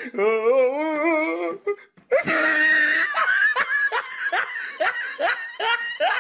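Laughter: a wavering, high-pitched giggle, then after a short break a run of breathy bursts of laughter, about three a second.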